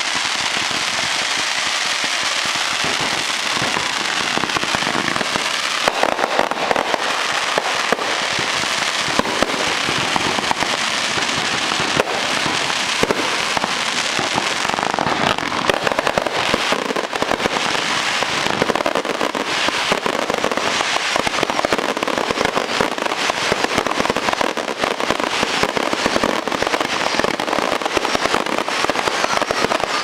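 Fireworks going off in rapid succession: aerial bursts and crackling effects make a dense, continuous crackle studded with many sharp pops.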